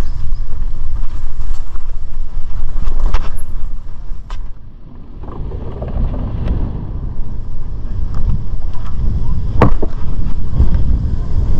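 Wind buffeting the microphone and tyre rumble of a mountain bike riding a dirt trail and a narrow wooden plank, with a few sharp knocks and rattles from the bike.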